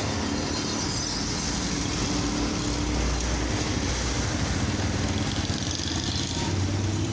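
Street traffic: motorcycle engines running as motorbikes pass close by, over a steady background of traffic noise.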